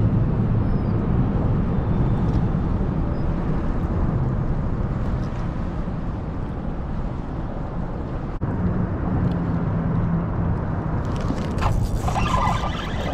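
Steady low rumble of road traffic on the highway bridge overhead, with a flurry of short clicks and rattles near the end.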